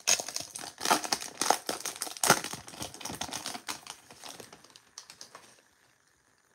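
Foil wrapper of a Topps baseball card pack crinkling as hands pull it open. The crackling is loudest in the first couple of seconds and dies away about five seconds in.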